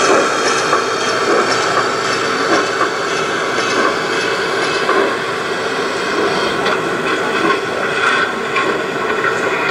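Gauge 1 (1:32 scale) model train wagons and a passenger coach rolling past on the track: a steady rolling rumble with faint clicks as the wheels pass over the rail joints.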